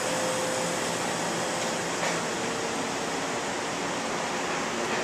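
Steady rushing noise of a commercial kitchen's fans and machinery, with a faint steady hum underneath.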